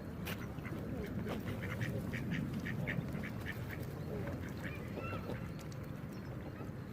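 Ducks quacking, many short calls in quick succession during the first half, thinning out later, over a steady low background noise.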